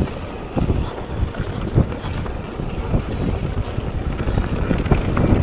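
Wind buffeting the microphone while a mountain bike descends a rough trail, with a low rumble and frequent knocks from the bike over bumps; it grows louder near the end.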